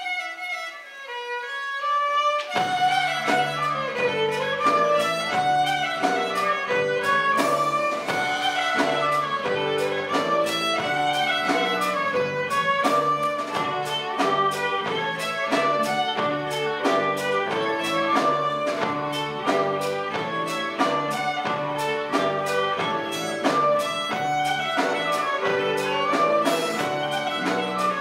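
Live folk-ensemble music led by fiddle: a lone melody line opens, then about two and a half seconds in the bass, percussion and the rest of the band come in with a steady beat.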